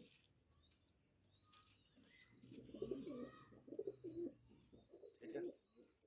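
Pigeon cooing in repeated low, throaty pulses, starting about two seconds in.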